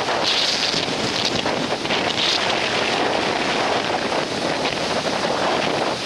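Rough storm surf breaking and washing up a sandy beach, mixed with strong wind buffeting the microphone. Two louder gusts come about half a second and two and a half seconds in.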